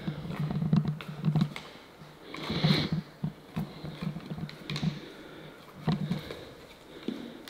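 Wooden parallettes knocking and clacking as hands are set down on them one after another during a handstand walk. The sound is an irregular run of sharp taps and dull knocks, with the bars shifting on the rubber plates beneath them.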